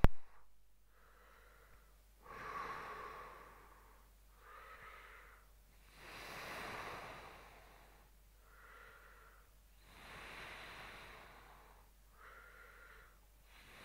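Slow, heavy breathing close to the microphone, a stronger breath and a weaker one in turn, one full in-and-out about every four seconds, over a faint steady low hum.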